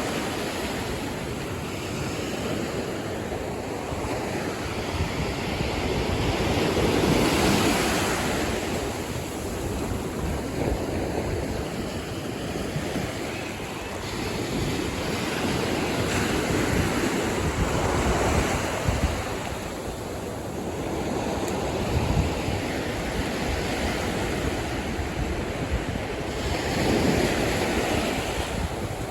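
Ocean surf breaking on a beach, waves swelling and washing in every few seconds, with wind buffeting the microphone.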